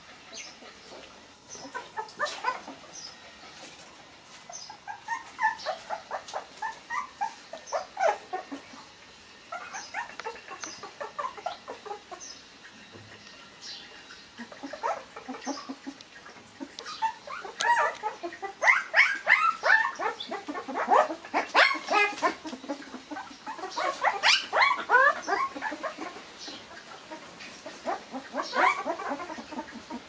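A litter of puppies whimpering and yipping as they play, in repeated bouts of short, high squeals that come thickest in the second half.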